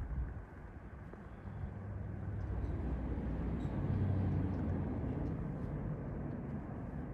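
Low rumble of a passing vehicle, building to a peak about four seconds in and then easing off.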